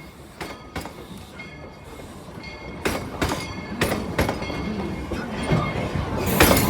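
Tweetsie Railroad No. 190, a 2-8-2 Mikado steam locomotive, working with its train, a series of sharp exhaust chuffs over rail noise, growing steadily louder as it comes closer.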